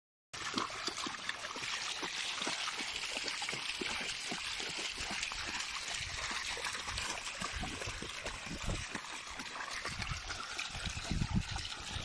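A small stream running steadily, with scattered low knocks and rustles that thicken near the end.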